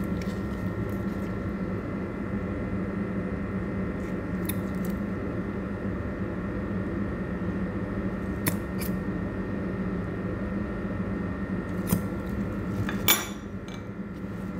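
Steady background hum, with a few light clicks of a spoon against a ceramic bowl as honey is added to a mustard dressing; the sharpest click comes near the end.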